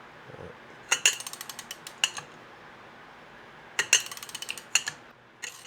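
Ratchet wrench clicking in quick runs as it winds the threaded rods of a hook-type coil spring compressor down on a motorcycle rear shock spring. There are two runs of rapid clicks, about a second each, and a brief third near the end.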